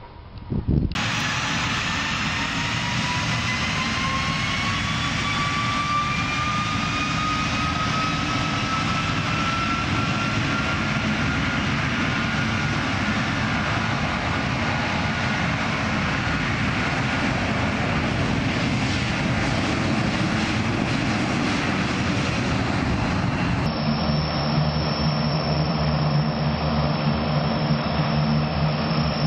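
Jet aircraft engine running: a steady rush with a high turbine whine that slowly rises in pitch. Near the end it gives way to the low, steady drone of a twin-turboprop airliner's propellers and engines as it taxis.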